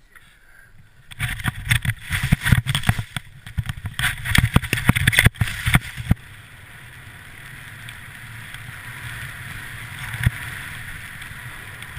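A rider dropping into a snow slope: ski or board edges scraping and chattering on the snow through a few seconds of quick, irregular turns, then a steady hiss of gliding over snow with wind for the second half.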